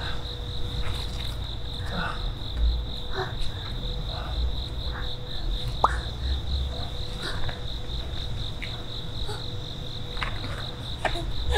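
Crickets chirping in a steady, pulsing trill, over a low steady hum.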